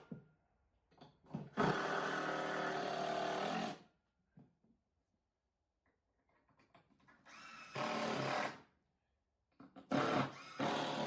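Power drill-driver running three times, the first and longest run about two seconds, driving deck screws into a wooden table to anchor a welding jig, with small handling clicks between runs.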